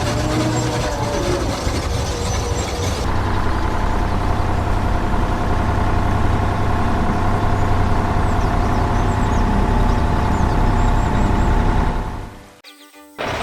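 Heavy construction-vehicle engine running steadily with a low hum; the sound changes about three seconds in, then cuts out briefly near the end before starting again.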